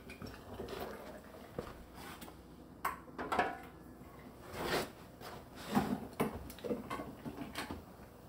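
Scattered clinks and knocks of kitchen utensils while jars are filled with soup: a metal ladle against a stockpot and canning funnel, and glass canning jars and tongs being handled. About half a dozen separate knocks, a few with a short ring.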